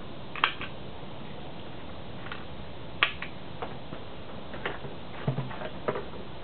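A handful of short, sharp metallic clicks, spaced irregularly over several seconds, as .243 cartridges are handled and pressed into a rifle's detachable magazine, over a steady hiss.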